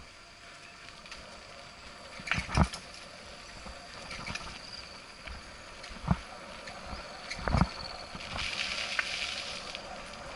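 Mountain bike riding over a rough dirt trail: tyres rolling on gravel, with hard knocks as it hits bumps. The biggest come a little over two seconds in, around six seconds and around seven and a half seconds, followed by a stretch of louder hissing tyre and gravel noise.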